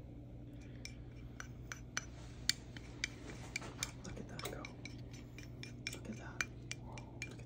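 Faint irregular clicks and ticks from a plastic squeeze bottle being squeezed to drizzle caramel sauce, over a low steady hum.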